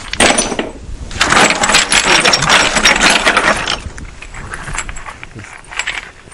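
Chunks of flint clattering and clinking against one another as they are handled and laid into a kiln. There is a dense run of clatter for about the first four seconds, then sparser, fainter clicks.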